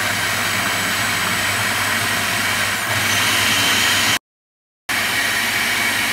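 Electric food processor motor running steadily, mixing pancake batter. The sound cuts out completely for about half a second some four seconds in, then carries on at the same level.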